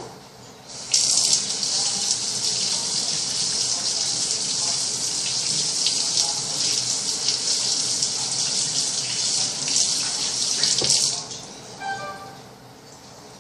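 Water running steadily from a tap into a sink. It starts about a second in and shuts off about two seconds before the end.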